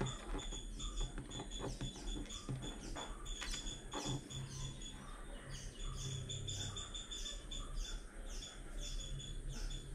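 A bird chirping over and over, short high notes several a second in runs with brief gaps. A few faint clicks from small parts being handled, over a low steady hum.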